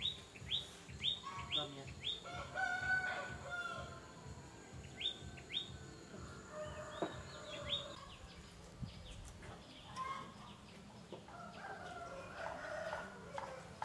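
Chickens calling: a series of short, high peeps that fall in pitch, about two a second at first, with lower clucking calls in between and again near the end.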